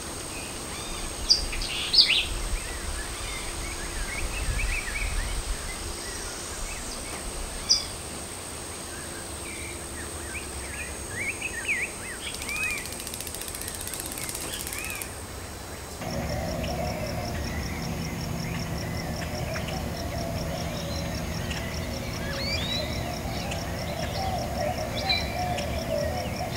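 Outdoor background noise with small birds chirping now and then. About two-thirds of the way through, the background changes abruptly to a denser hum with a wavering drone and a fast, even ticking.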